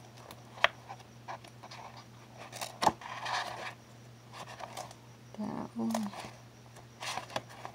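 Sheets of a 12x12 patterned scrapbook paper pad being turned one by one: crisp paper rustling and flapping, with a sharp snap about three seconds in.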